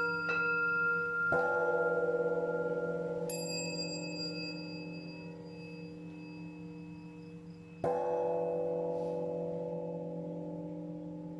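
Buddhist temple bells struck to mark the prostrations. A large bell gives two deep strikes, about a second in and near eight seconds in, each ring dying away slowly. A small hand bell gives high, bright taps near the start and about three seconds in.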